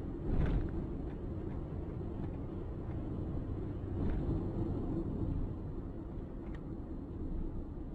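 Car driving, picked up by a dashcam: steady low road and engine rumble, with faint brief knocks about half a second in and again about four seconds in.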